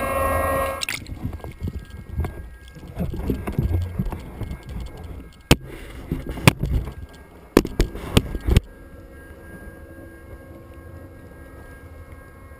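Muffled rumble of sea water sloshing against a waterproofed camera, broken by several sharp knocks. From about eight and a half seconds in, a steady low hum of ship machinery.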